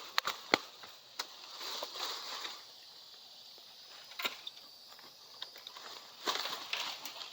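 Rustling with scattered sharp clicks and snaps as bamboo stems and leaves are handled and cut into cuttings; no chainsaw is running.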